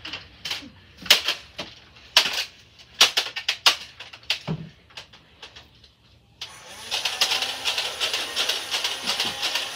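Hard plastic toy lightsaber clacking against a plastic toy blaster in a run of sharp, irregular knocks. About six seconds in, a small motor starts abruptly and runs with a fast, steady rattle, as from a motorized foam-dart blaster.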